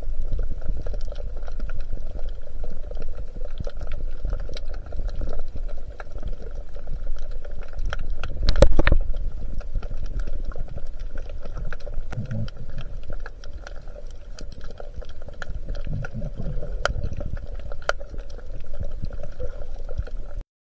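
Underwater ambience picked up by a submerged camera: a steady muffled rumble of moving sea water with scattered crackling clicks, and one louder knock about halfway through.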